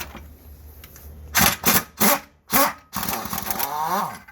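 Several short bursts of a power tool, then a longer run that rises in pitch near the end.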